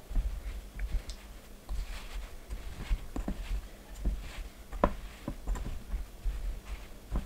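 Hands squeezing and kneading a freshly mixed flour-and-water noodle dough, giving irregular light taps and knocks, one louder knock a little after the middle.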